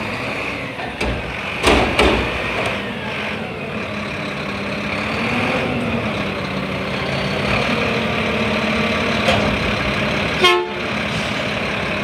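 McNeilus front-loading garbage truck's diesel engine running with the hydraulics working as the forks dump and lower a commercial dumpster, with two loud bangs of the bin just under two seconds in. A short horn toot near the end.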